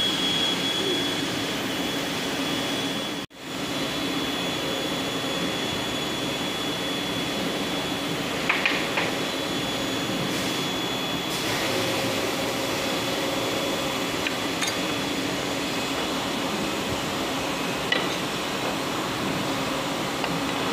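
Steady mechanical hum of workshop background machinery with a thin high whine, dropping out for a moment about three seconds in. A few light metal clinks come from a gearbox housing being handled at a steel bench vise.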